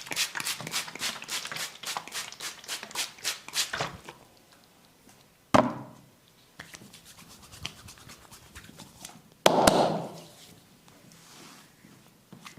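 Hands giving a percussive tapping massage, fast even strikes at about five a second that stop about four seconds in. Then come two loud, sharp single smacks, one about six seconds in and a heavier one about ten seconds in.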